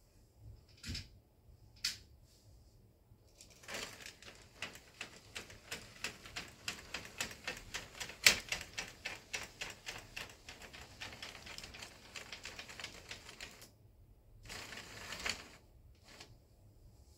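HO scale model train running on its track with a rapid, even clicking, about four or five clicks a second, which goes on for about ten seconds and then stops, followed by a shorter burst of the same clicking. Two single sharp ticks come before it.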